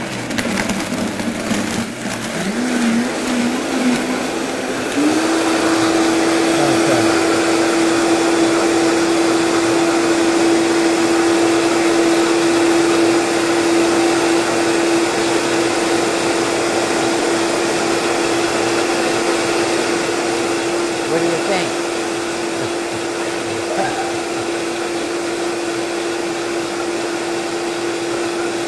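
Countertop blender blending a smoothie with ice: the motor climbs through its speeds in steps over the first few seconds, jumps to full speed about five seconds in, then runs at a steady high whine.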